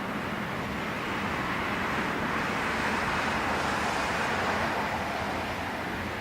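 Boeing 777F freighter's twin GE90 turbofan engines roaring as the jet passes. The roar swells for about two seconds, holds strongest around the middle, and eases off near the end.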